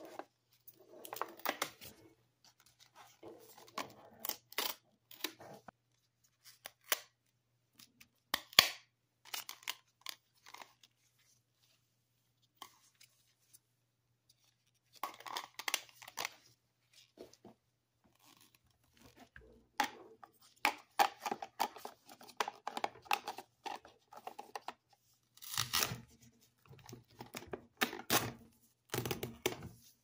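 Plastic packaging and protective film being torn and peeled off a single-serve coffee maker, with clicks and knocks as its plastic parts are handled. The sound comes in irregular bursts, with a lull of a few seconds in the middle.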